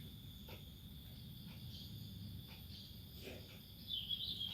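Faint, steady, high chirring of insects, growing briefly louder near the end, with a few soft clicks.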